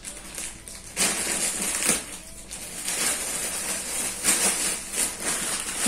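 Plastic courier mailer bag crinkling and rustling in irregular bursts as it is cut open and the packed clothes are pulled out of it.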